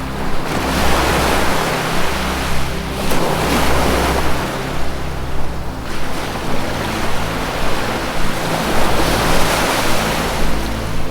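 Ocean waves surging and receding in about three long washes, over low sustained ambient music tones.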